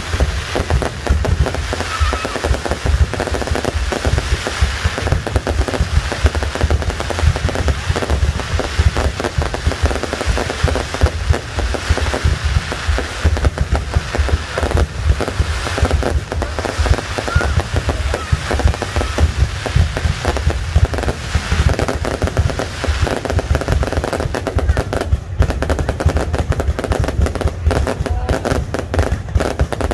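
Fireworks display: a dense, continuous barrage of rapid, overlapping bangs and crackles over a deep rumble of booms.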